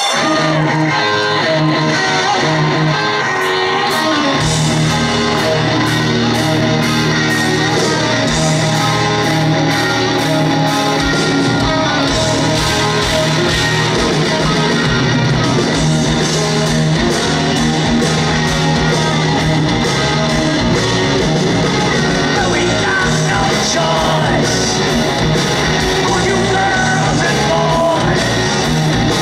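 A live rock band playing loudly through a concert PA, led by electric guitar. The bass and drums come in about four seconds in, and a man sings near the end.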